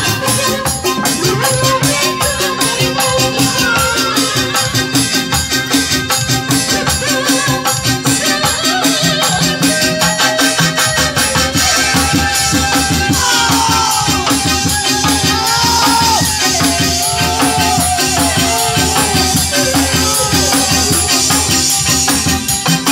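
Traditional Sundanese kendang drums playing a fast, steady rhythm with a metallic rattle over it, and a gliding melody line above that grows stronger past the middle.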